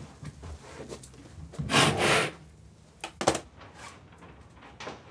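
Wooden drawer pulled open with a short rubbing slide about two seconds in, then a couple of sharp clicks and handling sounds from things being taken out of the drawer.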